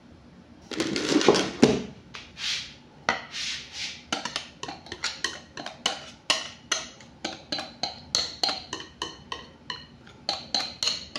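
Metal wire whisk scraping and tapping against a glass mixing bowl as the batter is worked out of it: a louder scrape about a second in, then a steady run of sharp clinks about three a second, each ringing briefly.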